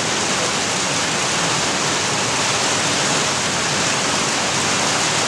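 Water pouring into a koi pond, a steady splashing rush with no breaks.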